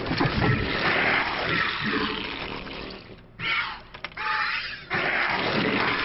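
StarCraft game sound: Zerg creature growls and battle effects, dropping out briefly about three seconds in before picking up again.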